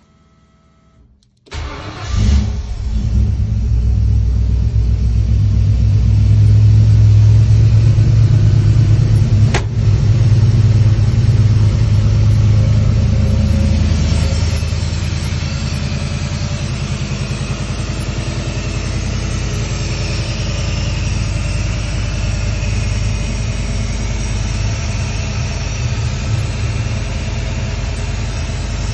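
1974 Ford Bronco engine cold-started after sitting a week: it fires and catches about a second and a half in and runs at a high fast idle. About halfway through it settles to a lower, steady idle.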